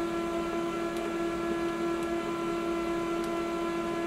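HP M183FW color laser printer, switched on for first-time setup, running with a steady hum that holds one constant tone.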